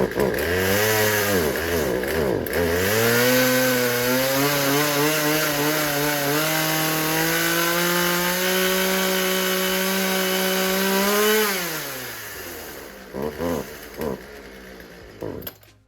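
Poulan Pro 262 42cc two-stroke chainsaw engine running, unevenly at first, then climbing in speed and holding at high revs for several seconds before the revs drop sharply and die away near the end. Its low-speed mixture is off: it runs better with the choke pulled out, a sign that the low end needs richening.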